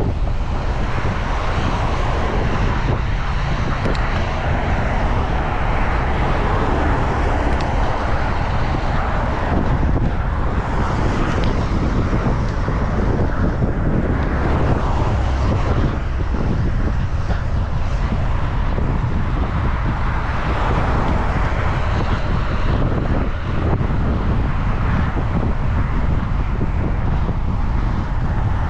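Wind noise on the microphone of a moving bicycle, over a steady hiss of road and passing traffic that swells twice, about ten and twenty seconds in.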